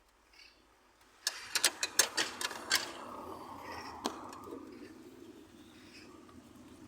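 A quick run of sharp metallic clanks, spanners knocking on bolts and steel in an engine bay, over a steady rumble that starts with them and slowly fades.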